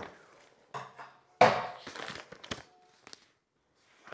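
A parcel being opened and its packaging handled, in several short rustling bursts, the loudest about a second and a half in.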